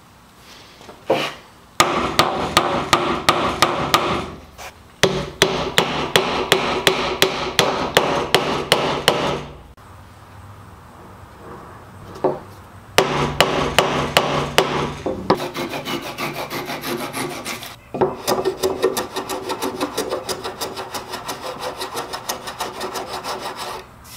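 A hand saw trimming protruding wooden dowels flush with a tabletop: several runs of quick, even strokes, about four to six a second, with short pauses between.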